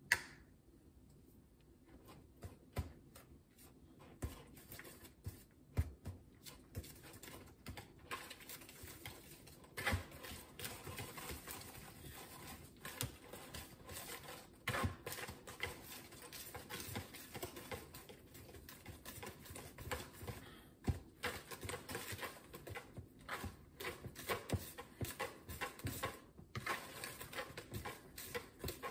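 Wire whisk beating cake batter by hand in a mixing bowl: fast, irregular clicking and tapping against the bowl. It opens with one sharp knock, the loudest sound here.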